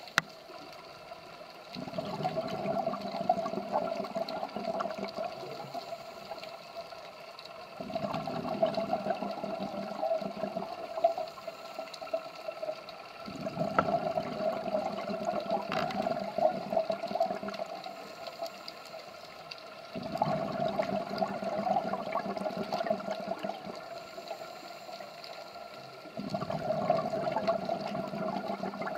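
Scuba diver breathing through a regulator underwater: a gush of exhaled bubbles about every six seconds, five breaths in all, with quieter pauses between them.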